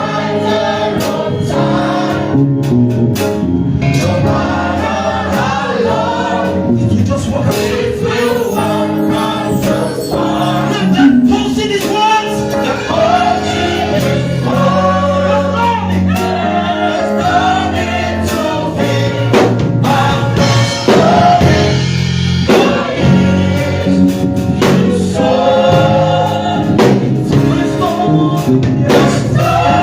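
A choir singing a gospel song over sustained instrumental accompaniment.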